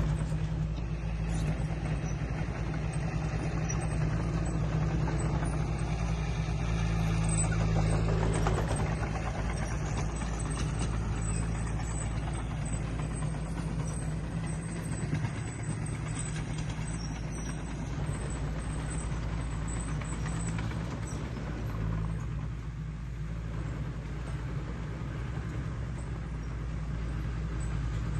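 Diesel engine of heavy earthmoving equipment running steadily under load, with a constant low drone and mechanical noise over it.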